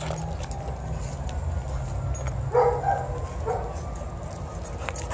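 A dog whining, three short high-pitched cries about halfway through, over a steady low background rumble.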